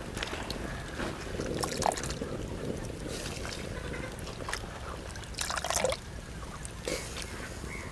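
Chopped cabbage pieces dropped by hand into water in an earthenware pot, with small splashes and trickling water now and then; the loudest splash comes about five and a half seconds in.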